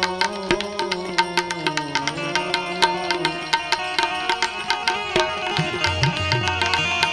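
Live Indian devotional ensemble music: tabla playing a rhythm of sharp strokes over sustained harmonium notes and banjo. The bass drum's pitch slides down a couple of times in the last second or so.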